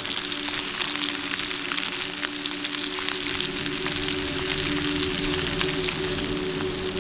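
Trout frying in butter and garlic in a pan over campfire coals: a steady sizzle full of small crackles and pops.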